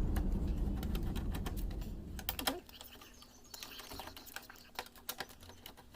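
Light, irregular clicks and taps of hands working on a laptop's plastic casing, over a low rumble that fades out in the first two seconds or so.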